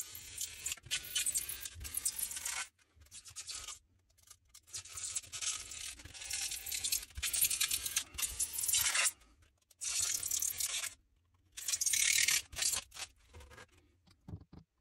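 Hobby knife blade cutting through a styrofoam sheet, a scraping sound in several long strokes with short pauses between them.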